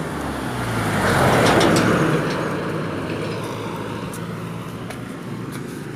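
A road vehicle passing by, its noise swelling to a peak about a second and a half in, then slowly fading.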